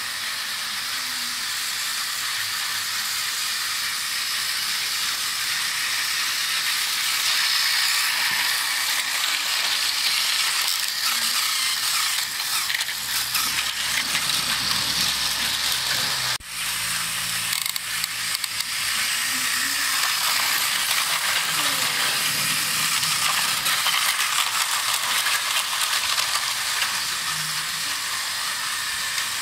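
Battery-powered Thomas & Friends toy trains running on plastic track: a steady whirring of their small geared motors with fine clicking of the wheels and couplings over the track.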